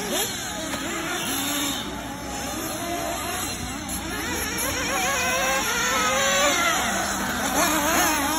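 Several radio-controlled racing cars' motors whining together, their pitches rising and falling as the cars speed up and slow down around a dirt track.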